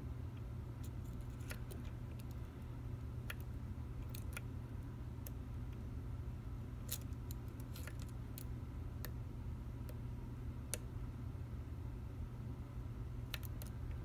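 Irregular light metallic clicks of a hook pick setting the pin tumblers of an American Lock 5200 padlock, with a pry-bar tension wrench in the keyway, over a steady low hum.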